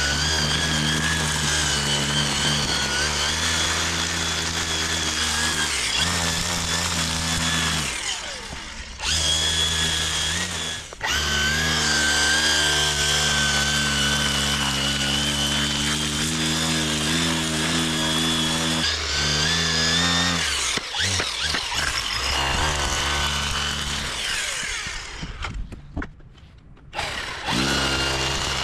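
String trimmer, held on its side as an edger, running along a concrete sidewalk edge with a steady high whine, letting off briefly a few times and cutting out for a moment near the end. Background music plays underneath.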